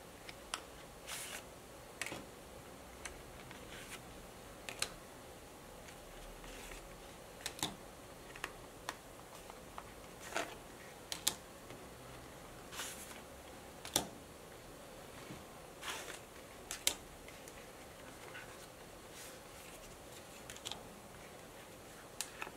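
Hands handling a leather bifold wallet: plastic cards slide in and out of the leather card slots and the wallet is opened and folded. These come through as scattered short clicks and rustles at irregular intervals.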